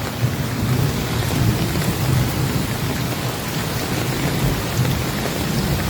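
Heavy rain pouring steadily, with a continuous low rumble underneath.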